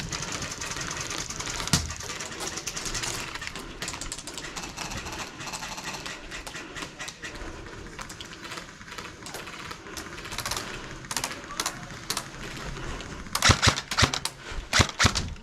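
Airsoft guns firing, scattered sharp clicks and snaps, then a loud burst of rapid fire about thirteen seconds in, with more rapid fire starting near the end.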